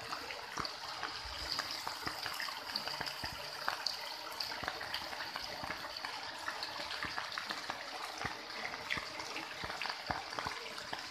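Rain falling steadily on flooded ground and standing water: a continuous hiss with a dense patter of individual drops.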